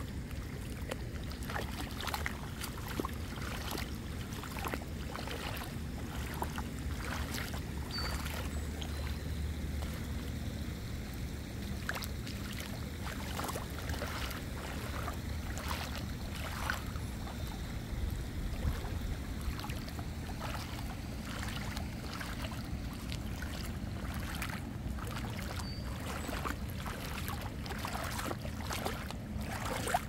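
Water rushing over the spillway of an overflowing reservoir: a steady low rush with many short splashes.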